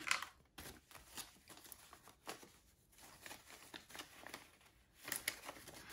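Faint rustling and crinkling of paper banknotes being handled and counted, with scattered short crackles.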